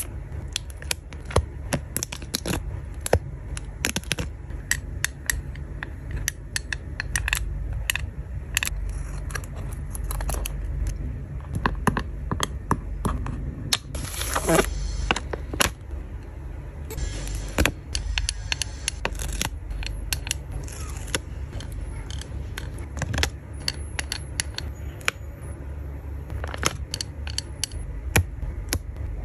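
Close-miked handling of plastic sticker sheets and clear film: many sharp clicks and taps of tweezers and plastic, with crinkling of plastic film about halfway through.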